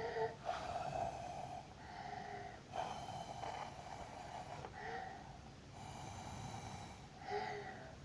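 A small child blowing through a tube into fart-putty slime to inflate a bubble: a run of short breathy blows, about one a second, with a faint whistling tone in some of them.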